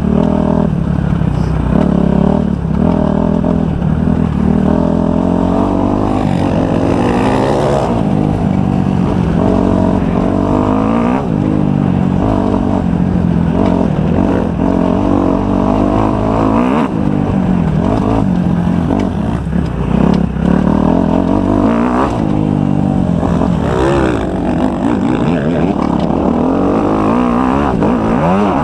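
Kawasaki 250 motocross bike engine revving hard, its pitch repeatedly climbing and dropping back as the rider accelerates, shifts and rolls off around the track.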